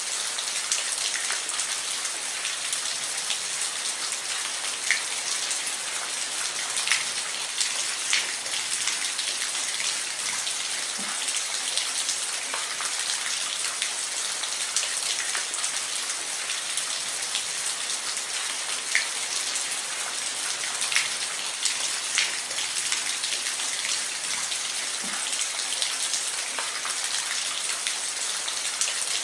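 Steady rain falling on a roof: an even hiss with scattered, louder individual drops ticking through it.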